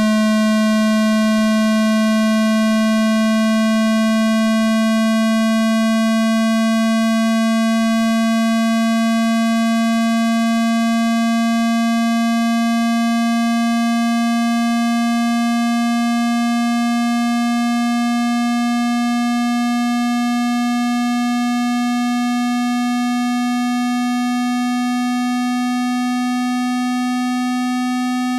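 Synthesized water-eject tone for clearing water and dust from a phone speaker: one low, buzzy tone rich in overtones, gliding slowly and steadily upward in pitch while getting slightly quieter.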